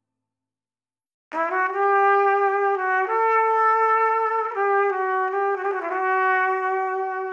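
Background music: near silence for about a second, then a melody of long held notes in a trumpet-like brass tone, shifting pitch every second or two.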